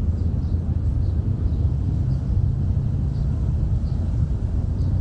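A steady low rumble with faint, light ticks recurring every half second or so.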